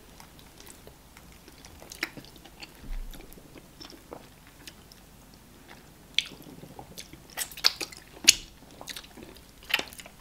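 Close-miked chewing and wet mouth smacks of people eating starch fufu dipped in banga soup, with scattered sharp clicks that come more often and louder in the second half, the loudest about eight seconds in.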